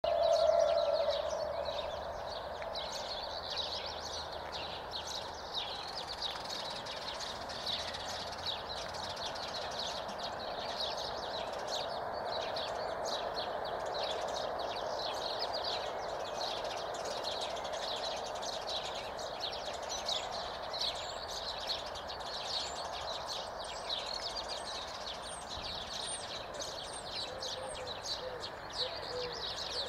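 Small birds chirping repeatedly over a steady background noise, with a short tone in the first second.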